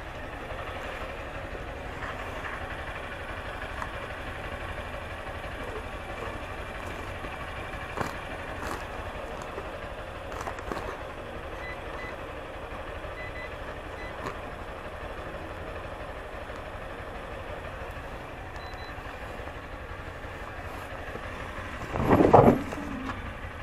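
Handheld card payment terminal giving short faint beeps as its keypad is pressed, over a steady low motorcycle engine idle. A brief loud noise comes near the end.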